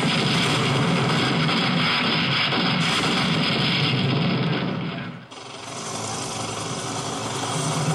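Recorded battle sound effects played over a hall's loudspeakers: a dense din of aircraft and gunfire-like noise that fades out about five seconds in, then a new passage builds up again.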